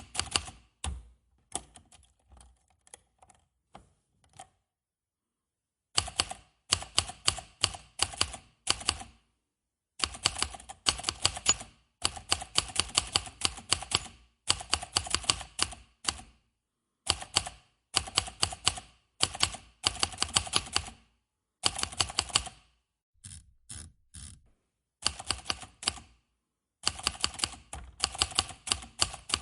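Manual typewriter keys being struck in quick runs of several keystrokes each, broken by short pauses, with a brief stop about five seconds in before the typing picks up again.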